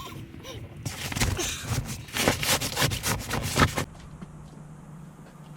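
Fabric seat cover rubbing and scraping as it is pulled and worked into place over a truck seat, in quick rough strokes for about three seconds. Then it drops to a low steady hum.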